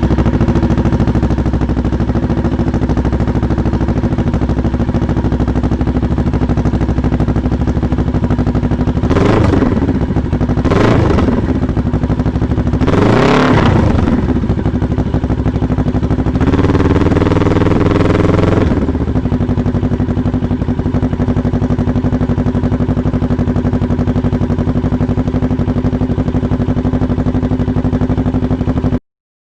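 Kawasaki Z650's parallel-twin engine running through a Toce Razor full exhaust system, idling steadily. About nine seconds in the throttle is blipped three times in quick succession, then held at higher revs for about two seconds before dropping back to idle. The engine cuts off suddenly near the end.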